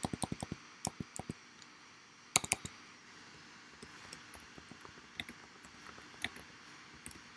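Computer keyboard keys being pressed: a rapid, evenly spaced run of presses that ends about half a second in as a line of text is deleted, then scattered single keystrokes as a short phrase is typed. A louder double click comes about two and a half seconds in.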